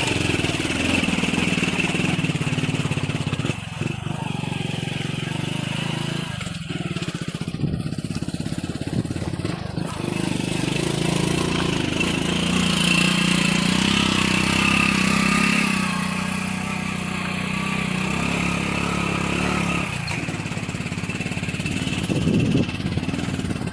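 Hero HF Deluxe motorcycle's small single-cylinder four-stroke engine running under way, its revs rising and falling as it is ridden.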